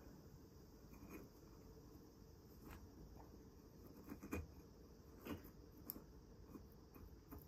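Faint scraping and a few light clicks of tweezers and fingertips working moss and soil inside a small glass jar.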